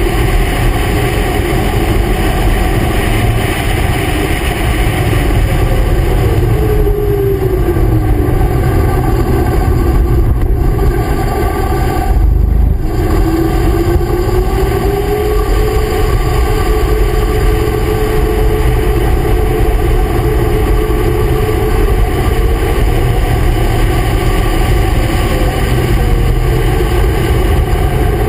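Vehicle engine running hard at track speed under heavy wind and road rumble. Its pitch falls over a couple of seconds about seven seconds in, drops out briefly around twelve seconds in, then climbs and holds steady for the rest.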